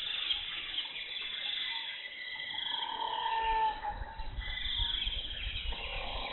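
Jungle ambience: insects trilling high and steady, with a short animal call sliding slightly down in pitch about three seconds in, and a low rumble from then on.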